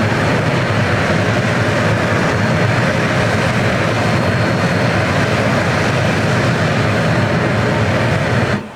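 Rail-welding preheating burner flame burning with a loud, steady rush, heating the rail ends. It cuts off suddenly near the end.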